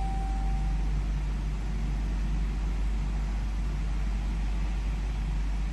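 Cabin sound of a 2015 Jeep Grand Cherokee with its 3.6L V6 running: a steady low rumble with a light hiss. A single short electronic beep sounds right at the start.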